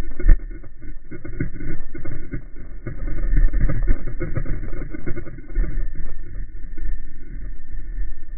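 A Husqvarna TC449 dirt bike's single-cylinder engine running unevenly, with heavy rumble and one sharp knock just after the start.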